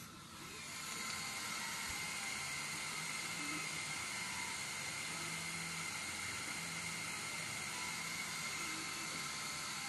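CNC 1610 mini engraver with a 500mW laser module engraving a PVC pipe: a steady whirring hiss with a thin high whine, growing louder in the first second. Short low hums come and go as the stepper motors move the laser head.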